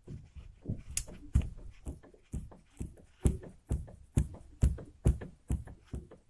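Front left drive shaft of a Chevrolet Niva jerked up and down by hand, knocking about twice a second. The propeller shaft is slackened so the transmission is unloaded, and the knocks come from play in the driveline.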